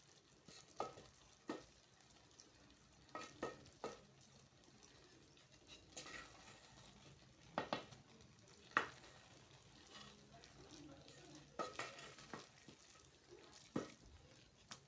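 Cooking in a pan: a utensil stirring and knocking lightly against the pot, about a dozen scattered clicks and taps over a faint steady sizzle.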